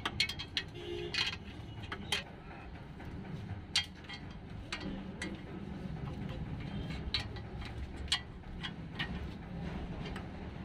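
Scattered sharp metallic clicks and clinks of a spanner working the 13 mm bolts of a truck's clutch pressure plate loose one by one, over a low steady background hum.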